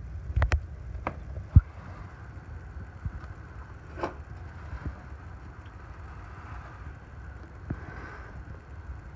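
Low rumbling handling noise with a few light knocks and clicks. The sharpest knock comes about a second and a half in.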